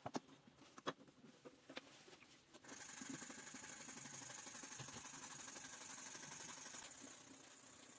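A few light clicks and taps, then a steady hiss that starts suddenly about three seconds in and runs on, easing a little near the end.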